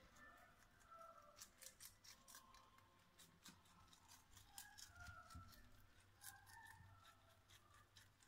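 Faint, crisp clicking crunches of a lop rabbit chewing lettuce, with faint music in the background.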